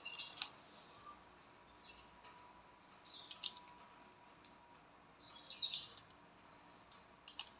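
Faint metallic clicks and short squeaky scrapes, a few at a time, as brass shells are pushed into the chambers of a Wingun 708 airsoft revolver's cylinder.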